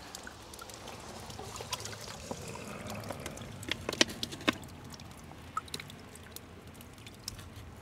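Water trickling, with a few short light knocks and taps scattered through it, the sharpest about four seconds in.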